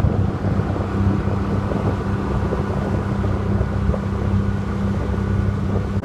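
Small motorboat's engine running at a steady speed while the boat cruises, heard from aboard, with wind buffeting the microphone.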